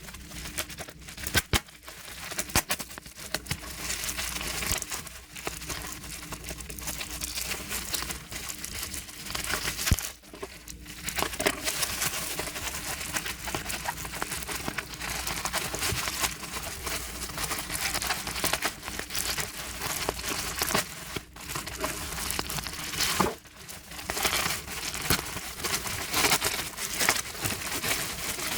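Packaging crinkling and rustling as merchandise is unwrapped by hand, with some tearing, pausing briefly a few times.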